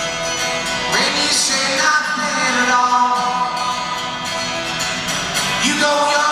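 A man singing while strumming an acoustic guitar, in a live solo performance through a microphone.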